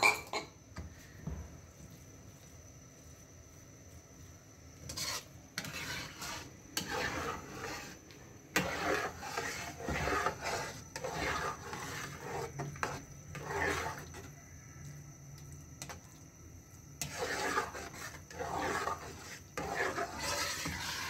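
Slotted metal spatula scraping and stirring through a thick mix of milk, rice and grated carrot in a non-stick pan, in irregular strokes from about five seconds in, with a short lull past the middle. A sharp metal clink right at the start.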